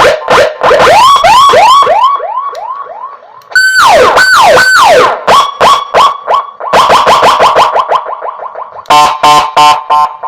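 Electronic siren module (Echo Gamma, 45 W) sounding through a 10 W horn speaker, switched through several tones: a run of quick rising whoops, three falling sweeps, a fast warble, and near the end a rapid pulsing tone.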